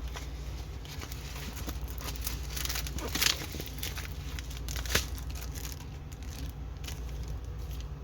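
Plastic packaging of a diamond painting kit crinkling and rustling as it is handled and opened, with two sharper, louder crackles about three and five seconds in.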